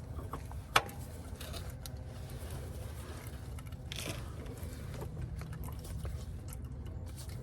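Small clicks and handling noises of tools and parts being worked on a car, with one sharp click about a second in and a brief scrape about halfway, over a steady low rumble.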